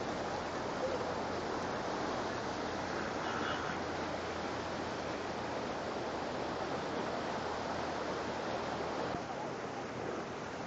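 Steady rushing noise of heavy rain and running floodwater, with a faint low hum underneath that eases off about nine seconds in.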